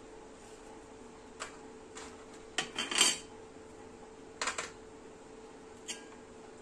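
A small metal knife clinking and scraping against a stainless steel plate as biscuit cream is scraped off onto it: a few scattered clinks, with the loudest cluster about three seconds in and another about four and a half seconds in.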